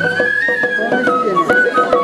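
Japanese festival o-hayashi music: a bamboo transverse flute plays a held melody that rises, falls and steps back up near the end, over light clicking percussion.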